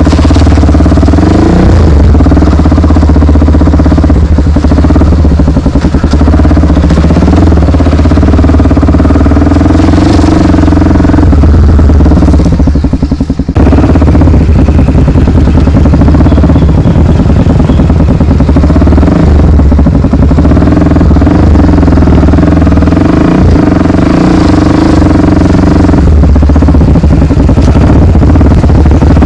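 Honda XR 250 Tornado's single-cylinder four-stroke engine running steadily at cruising speed. About halfway through, the sound briefly drops away and then picks up again.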